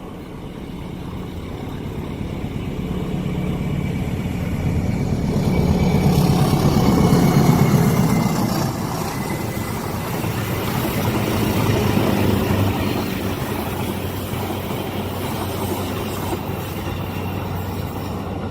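A train approaching and passing close by. A low engine drone builds to a peak about seven seconds in, followed by a steady rumble as the train rolls past.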